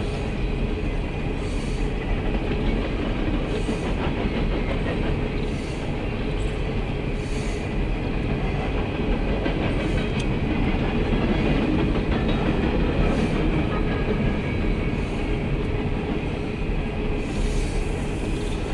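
Empty coal hopper cars of a long CSX freight train rolling past: a steady rumble and rattle of wheels on rail, with a brief higher sound recurring about every two seconds.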